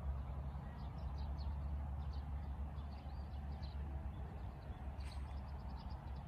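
Small birds chirping in quick, scattered short calls over a steady low rumble.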